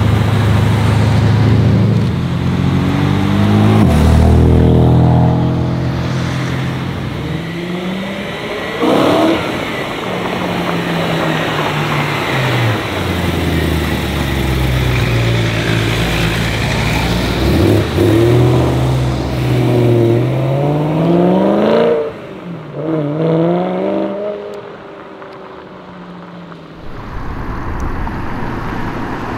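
A run of BMW M car engines revving and accelerating away one after another, including an F80 M3's twin-turbo straight-six and an E92 M3's V8, with the engine pitch climbing and dropping through gear changes and each clip cut off abruptly. The sound goes quieter for a few seconds near the end before another car pulls away.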